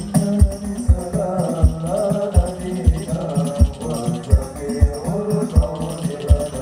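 Live sholawat devotional singing by a group, amplified through a large sound system, with hand percussion and a deep drum beat roughly twice a second.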